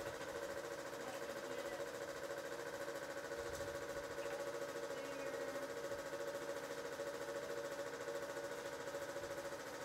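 A small motor running with a steady, fast-pulsing hum.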